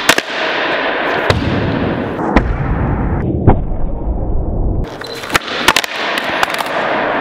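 Skateboard on a concrete floor: several sharp wooden clacks from tail pops and landings, with a stretch of heavy, dull rumble from the wheels in the middle.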